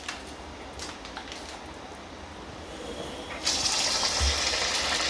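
A flattened, grated raw-potato pakora goes into smoking-hot oil in an iron kadhai about three and a half seconds in, and the oil bursts into a loud, steady sizzle. Before that there is only a faint hiss.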